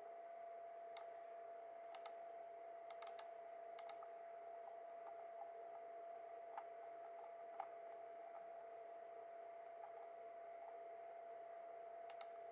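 Scattered clicks of a computer mouse, single and in quick pairs or threes, with a long gap in the middle, over a faint steady tone.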